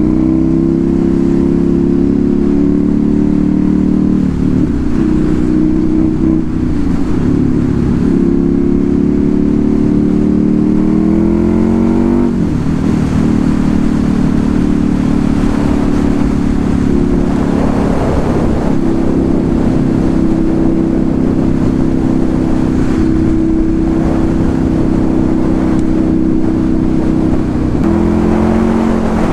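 Motorcycle engine with a loud exhaust running at road speed. The revs climb steadily about ten seconds in and drop sharply at a gear change around twelve seconds in, then hold steady before climbing again near the end.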